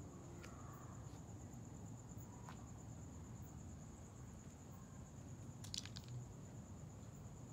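Quiet outdoor night ambience: a steady high-pitched trill over a low rumble, with a few faint clicks and a short cluster of sharper clicks about six seconds in.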